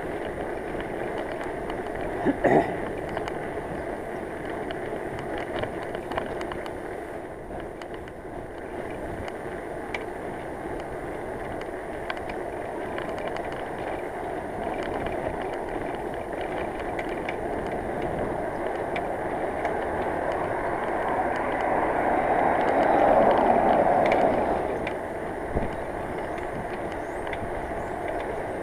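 Bicycle being ridden on a road: steady tyre and wind noise with scattered clicks and one sharp clank about two and a half seconds in, the clanking and clicking of a rear hub that the rider says needs repacking. A louder swell of rushing noise rises and fades near the end.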